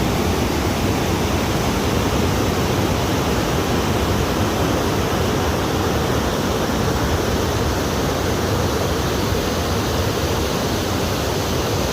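A stream of water rushing, loud and steady with no change.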